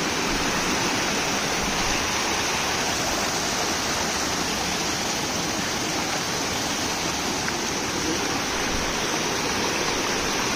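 Small rocky stream rushing and spilling over boulders: a steady, even rush of water.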